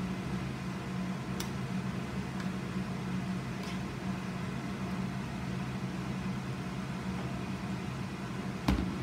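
Steady hum of a kitchen ventilation fan, with a few light clicks of a spoon against a stainless skillet as a stir fry is stirred, and a sharper knock near the end.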